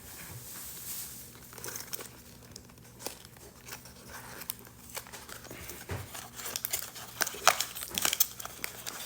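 Crinkling and tearing of a blind-box figure's wrapper being opened by hand, with sharp crackles that grow louder and denser near the end.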